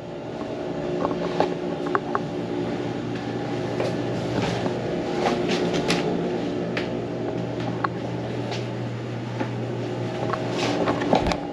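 A steady mechanical hum, with scattered light clicks and knocks.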